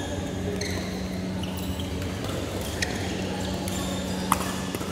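Badminton rally: two sharp racket strikes on the shuttlecock about one and a half seconds apart, the second the louder, with short squeaks of shoes on the court mat and a steady low hum throughout.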